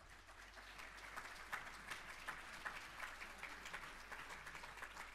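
Audience applauding: many hands clapping in a dense, steady patter that thins a little near the end.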